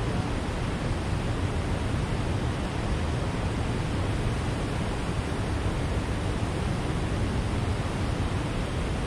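Steady, even rushing of water flowing below a dam.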